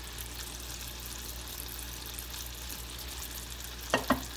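Sugar-and-water syrup boiling in an aluminium pot with a steady bubbling hiss, cooked toward the hard-candy stage. About four seconds in, a metal spoon clicks twice against a small clear cup as a drop of syrup is dipped into water to test whether it hardens.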